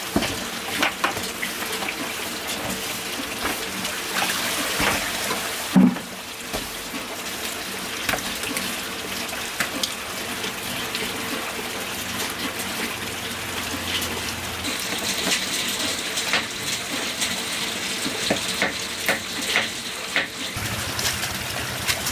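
Water pouring steadily from a pipe into a plastic basin, with small splashes and knocks as hands work in the water. There is one louder sharp knock about six seconds in.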